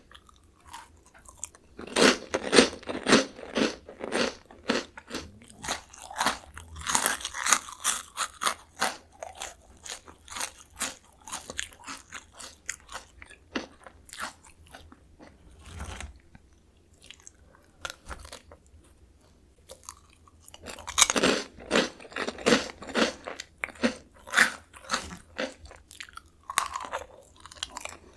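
Close-miked crunching and chewing of Jagalchi, a crisp Korean seafood-flavoured snack, in rapid crackly bites. There are two long bouts of chewing with a quieter lull in the middle.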